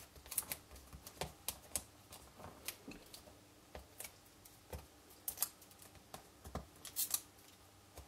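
Light, irregular clicks and rustles of fingers handling and pressing down small pieces of cardstock.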